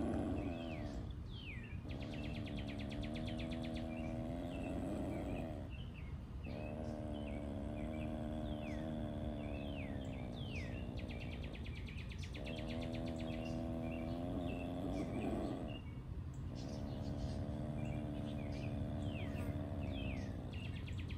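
Birds chirping, with repeated downward-sweeping calls and a fast trill. Under them runs a low, steady hum that comes in stretches of three to five seconds with short breaks between.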